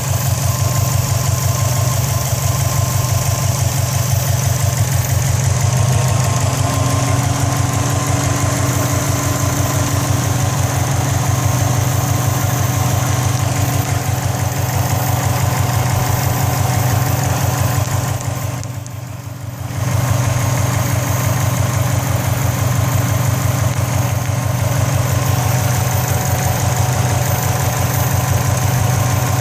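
A 2004 Subaru WRX's turbocharged flat-four idling steadily with a rattle from the turbocharger area, whose cause the owner does not know. The sound dips and dulls briefly about two-thirds of the way through.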